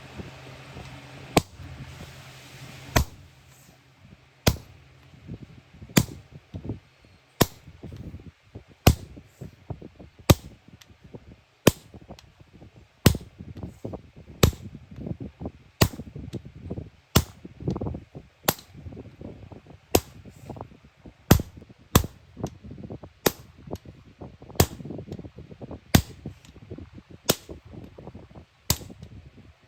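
Hand hammer striking iron, sharp blows about once every second and a half with lighter knocks in between.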